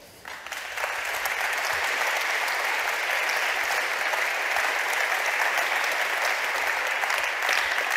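Audience applauding, swelling within the first second and then holding steady.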